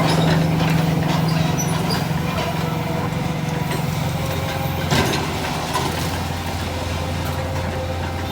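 Komatsu PC200 excavator's diesel engine running steadily. Its note drops lower about three seconds in, as it settles toward idle. A single sharp knock comes about five seconds in.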